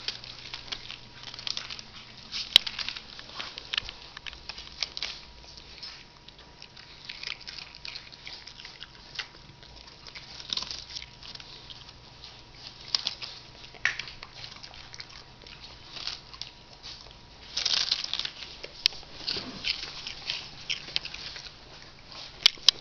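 A beagle biting and chewing a head of romaine lettuce: irregular crisp crunches, with a louder burst of crunching about eighteen seconds in.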